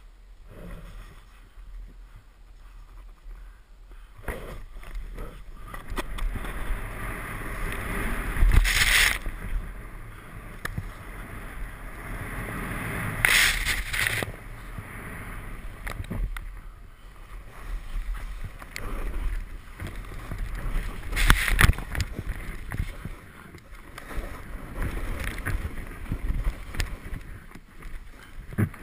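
Snowboard sliding and carving down steep snow, the board's edge hissing and scraping through the snow with wind rushing over the camera microphone. The rushing rises and falls in waves, with a few sudden louder bursts as snow sprays up, about a third of the way in, near halfway and again about three quarters through.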